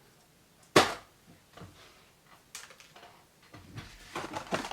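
One sharp plastic snap a little under a second in, then light rustling and handling of the cardboard and plastic packaging as the action figure is freed from its card.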